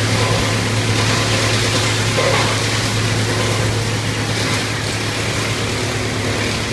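Wood chipper machine running steadily: a constant low engine hum under a broad rushing noise.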